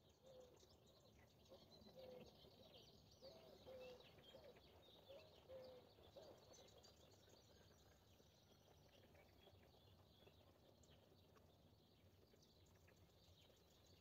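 Faint morning chorus of many small wild birds chirping and trilling. For the first half a lower call near 500 Hz repeats every second or so, then stops.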